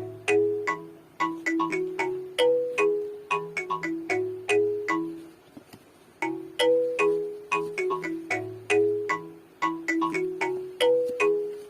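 Background music: a light, ringtone-like melody of short, bright struck notes over a soft bass line, repeating the same phrase, with a brief pause about halfway through.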